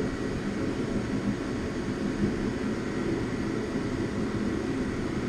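Steady low roar of running machinery, even and unchanging, with no distinct clicks or knocks.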